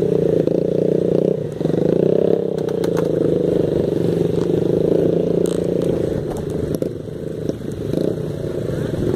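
Dirt bike engine running at low, uneven revs as the bike is worked over loose rock, with a brief drop in revs about a second and a half in. A few clicks and scrapes of stones sound over it.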